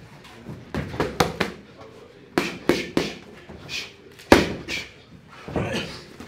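Boxing gloves striking focus mitts in fast combinations: a flurry of about four punches early on, three more in quick succession, then a single heavier shot, the loudest, about two-thirds of the way in, followed by another couple of hits near the end.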